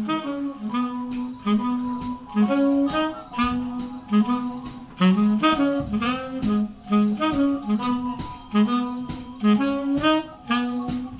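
Jazz big band playing a swinging blues. The horn section of saxophones, trumpet and trombone comes in loud at the start with short punchy phrases over drums, cymbals, upright bass and piano.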